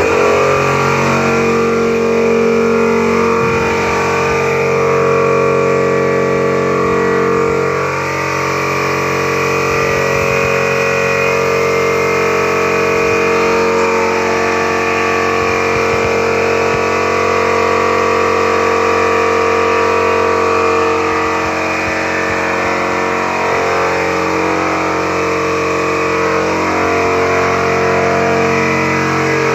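Background music of held, sustained chords that change every few seconds at an even level.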